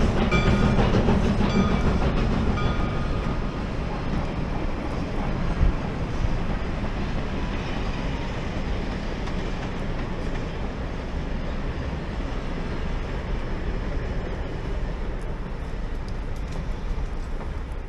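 Steam train hauled by Soo Line 1003, an ALCO 2-8-2 Mikado, passing at track speed, its wheels clattering on the rails. It is loudest in the first few seconds, with short high tones, then eases to a steadier rumble as the train moves on.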